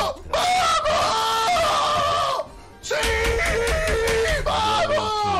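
A man screaming in excited celebration: two long, drawn-out yells with a short break in between.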